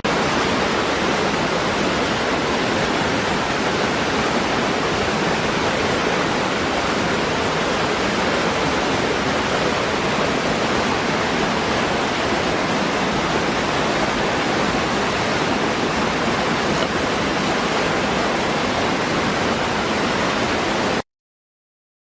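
Small waterfall pouring over rocks into a shallow pool: a steady, even rush of water that cuts off suddenly about a second before the end.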